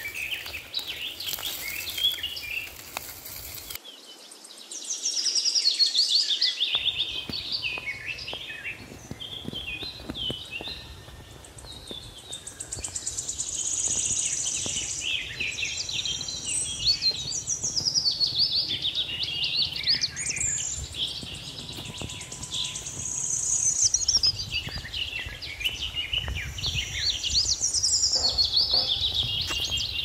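Several birds singing and calling at once, a dense run of quick chirps and whistles that rise and fall, over an even background noise.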